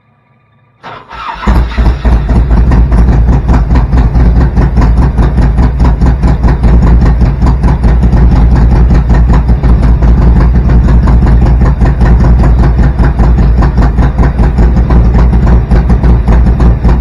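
Rebuilt Harley-Davidson Evo V-twin, with 10.5:1 compression and an EV27 cam, fired up for the first time after the rebuild. After about a second of quiet it cranks briefly, catches, and then runs loudly and steadily with a rapid, even beat.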